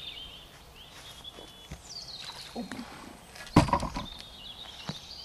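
Small birds chirping faintly in the background, with one sudden loud thump about three and a half seconds in.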